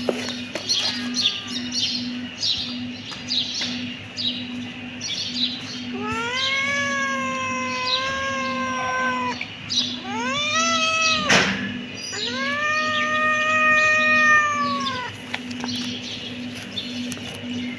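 Kittens meowing: a run of short, high mews several times a second at first, then a few long drawn-out meows of about three seconds each that rise and fall in pitch, with a sharp click partway through.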